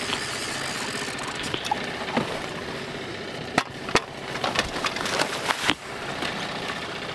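A steady rush of wind and water, with a big walleye thrashing and splashing at the surface beside the boat as it is brought to the net. Two sharp knocks come about halfway through, then a short run of clattering knocks and splashes.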